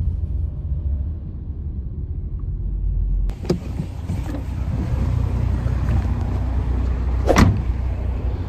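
Car interior noise from riding as a passenger: a steady low road rumble. About three seconds in it changes abruptly to a louder, fuller rush, with a couple of sharp knocks from the phone being handled.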